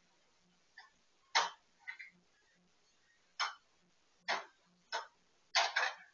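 Dog nosing and mouthing a plastic puzzle toy: a string of short, sharp plastic clacks and rattles at irregular intervals, the loudest about a second and a half in. A faint, steady low ticking runs underneath.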